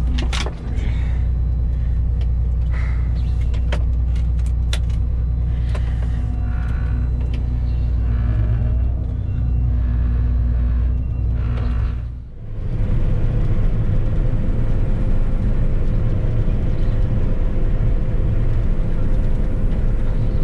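Low, steady drone of a combine harvester's diesel engine, with scattered clicks and knocks over the first twelve seconds. About twelve seconds in the sound briefly dips and changes abruptly to a steadier drone with a faint steady whine.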